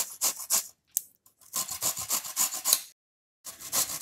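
Cauliflower florets grated on the fine side of a stainless steel grater: quick rasping strokes, about four or five a second, stopping briefly twice.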